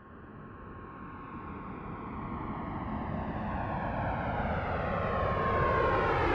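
An aircraft approaching, its noise growing steadily louder.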